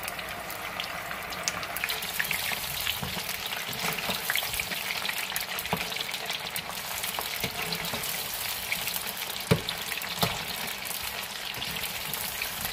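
Cornstarch-battered chicken pieces deep-frying in hot oil in a kadhai, a steady crackling sizzle during the first fry of a double fry. A metal spatula stirs the pieces, with a couple of sharp knocks about two-thirds of the way through.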